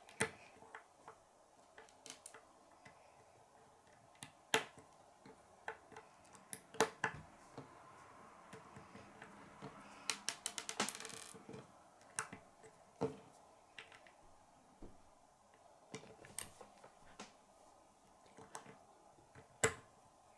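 Plastic Lego bricks clicking and knocking as they are pressed together and set down on a wooden table: sharp, irregular clicks, with a quick flurry of clicks about ten seconds in.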